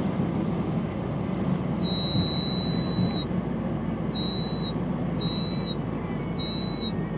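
High-pitched whistle from the vacuum solenoid valve and its hose fittings behind the glove compartment of a 1999 Mercedes SLK230, cutting in and out four times as the fitting is pressed, over a steady low engine rumble. It is the fault whistle that appears on deceleration, traced to this black valve.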